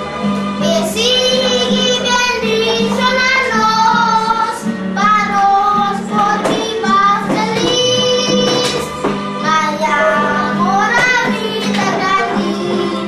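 A young boy singing solo: a children's gospel song in Papiamentu.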